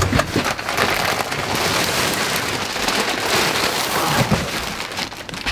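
Plastic wrapping and cardboard rustling and scraping as a compressed, bagged bundle of wool insulation is dragged out of its box. A dense, steady crinkling rustle with a few sharp knocks at the start.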